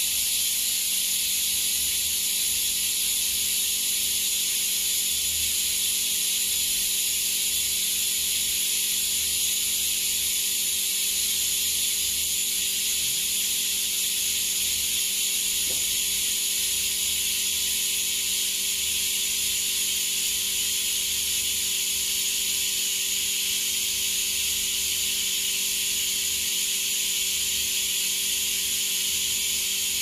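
Steady hiss with a faint, even hum underneath, from a flex-cable bonding machine running at idle, with no distinct strokes or clicks.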